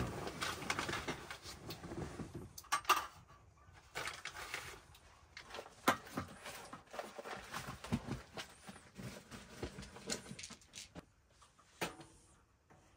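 Irregular knocks, clicks and clinks of coffee things being handled: mugs, a glass French press and a stovetop kettle being set down and picked up.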